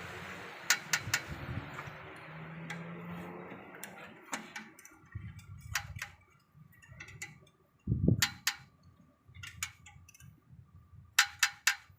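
Hand tools clinking and tapping on metal, irregular sharp clicks, with a dull thump about eight seconds in, during work on a clutch assembly.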